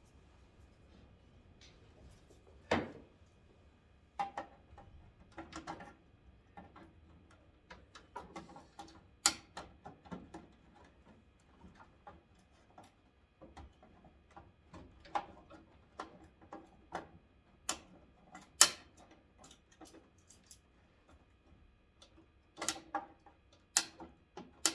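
Irregular plastic clicks and knocks from hands working a 1991 Ford Ranger's headlight bulb socket and wiring connector, which is stuck and won't come off. The sharpest knock comes about two-thirds of the way in.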